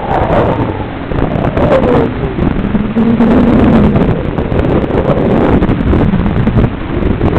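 FPV racing drone's electric motors whining over wind rush on the microphone, their pitch falling steeply in the first few seconds, holding low, then rising and dipping again with the throttle. Scattered ticks sound through it.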